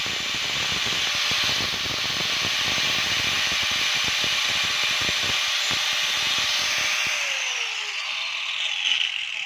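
Electric angle grinder running with an abrasive disc, grinding a small piece of PVC down thin. About seven seconds in it is switched off and its whine falls as the disc spins down.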